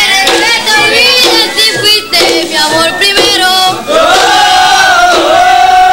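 A group of children singing together in chorus, with a short low note recurring underneath; about four seconds in the voices move to long drawn-out notes that rise and fall.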